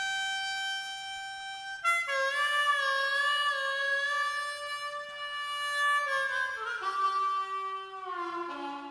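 Solo harmonica playing a slow closing phrase of a reggae song. Long held notes, one wavering with vibrato, step down into two- and three-note chords and grow quieter near the end.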